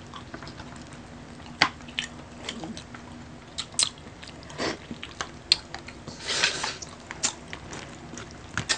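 Mouth sounds of eating seafood: biting and chewing with sharp clicks and crunches scattered throughout, and a longer crackly crunch about six seconds in.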